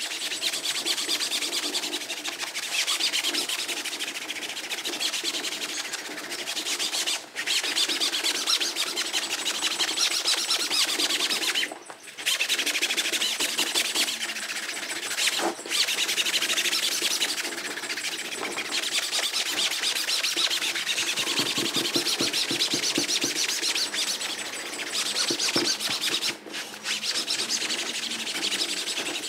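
A Mr. Clean Magic Eraser pad scrubbing wet, cleaner-soaked textured boat-seat upholstery in rapid back-and-forth strokes: a rough, hissing rub that stops briefly a few times.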